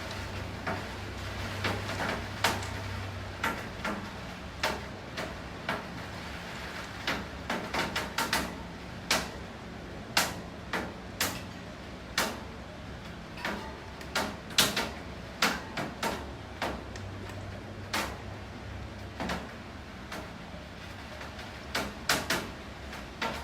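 Rain with large drops and drips striking a hard surface close by: irregular sharp taps, some in quick clusters, over a steady hiss of rain. A low hum comes in near the start and again a little after the middle.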